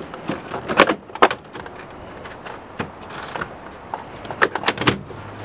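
Plastic interior door trim panel of a Ram pickup being lifted off the driver door: sharp clicks and snaps as it releases from the door, two loud ones about a second in and a quick cluster of several near the end.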